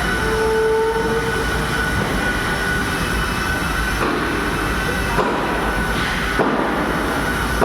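A 10-ton crane's machinery running: a steady rumble with a high, steady whine over it. A brief lower whine sounds in the first second, and the noise shifts abruptly about four, five and six seconds in.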